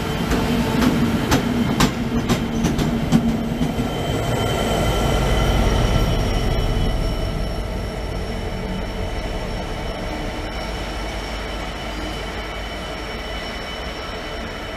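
Convoy of diesel locomotives passing through a station. Wheels click sharply over rail joints for the first few seconds, then a low rumble is loudest about six seconds in. A steady high whine carries on as the train draws away and the sound slowly fades.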